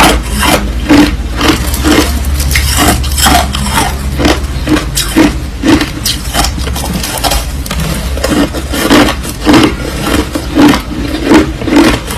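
Crushed ice being chewed close to the microphone: a steady run of crisp crunches, two to three a second.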